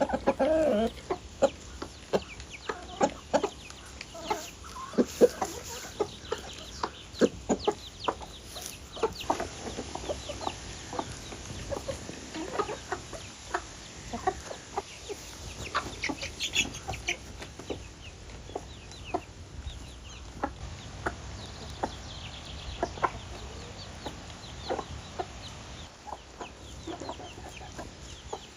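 Chickens clucking: a loose run of short clucks, a few louder ones in the first several seconds.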